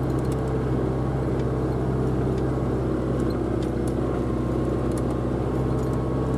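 Renault Ceres 95X tractor's John Deere diesel running steadily under load while pulling a mounted plough, heard from inside the cab.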